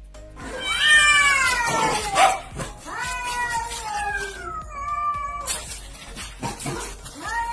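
Domestic cats yowling at each other in a face-off. There is a long yowl that falls in pitch, then drawn-out wavering yowls, a lull, and another yowl starting near the end.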